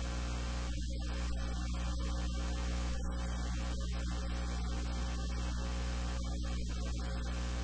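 Steady electrical mains hum with a stack of overtones over a constant hiss.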